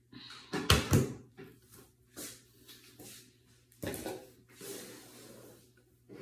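Hair straightener (flat iron) set down on a granite countertop: two loud clacks about a second in. Lighter knocks and rustling follow as things are handled on the counter and a paddle brush is drawn through long hair.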